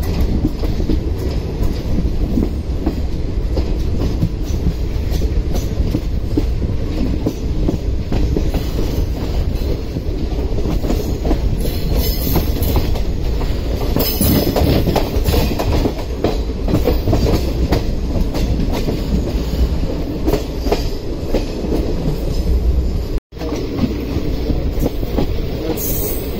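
Passenger express train running along the track: a steady rumble with the rapid clatter of wheels over rail joints, with brief high hissing or squealing patches midway. The sound cuts out for a moment near the end, then resumes.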